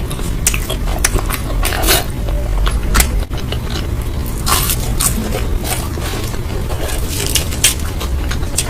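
A person eating close to the microphone: bites and chewing, with many sharp, irregular clicks and crackles of the food.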